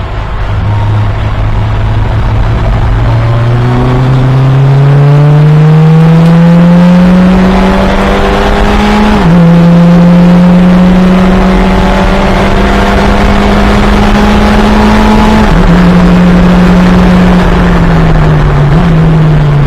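Fun Cup race car engine pulling hard at racing speed. Its note climbs steadily for about nine seconds, drops sharply at an upshift and holds high. It drops again at a second shift about two-thirds of the way through, then falls away near the end as the car slows, with one short blip.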